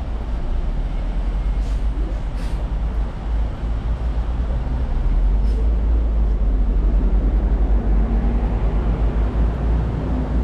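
Steady low outdoor rumble that grows louder from about halfway through, with a few faint brief clicks in the first few seconds.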